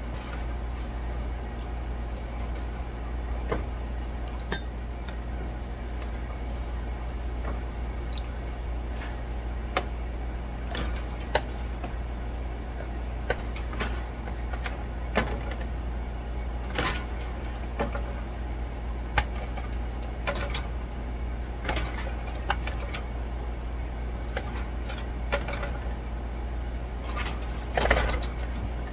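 Scattered clinks and taps of kitchen utensils against a baking pan as pan juices are cleared from around baked ribs, over a steady low hum.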